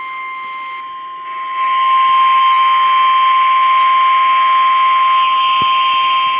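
NOAA Weather Radio 1050 Hz warning alarm tone: one steady high tone held throughout, over a radio hiss that grows louder about a second and a half in. The tone signals that a warning broadcast follows.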